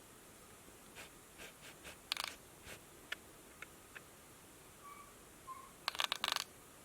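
Scattered small clicks and scratches, then a quick rattling flurry of clicks near the end, the loudest part. Two faint short squeaks come about five seconds in.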